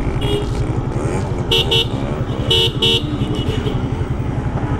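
Keeway K-Light motorcycle engine running steadily in traffic, with a vehicle horn giving two pairs of short beeps in the middle.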